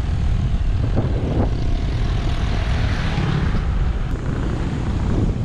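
Wind buffeting the microphone of a handlebar-mounted camera on a moving road bike: a loud, steady rumbling rush.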